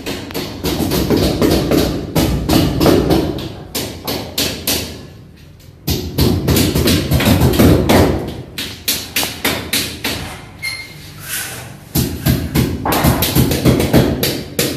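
Hammering in quick runs of blows, several a second, with short pauses between runs, as a new ceiling is nailed up.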